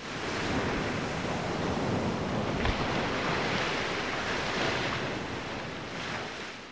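Small surf waves washing onto a sandy beach: a steady rushing wash that swells slightly, fading in at the start and fading out near the end.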